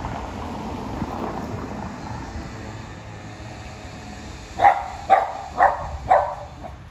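Small dog barking four times in quick succession, about half a second apart, starting about two-thirds of the way in.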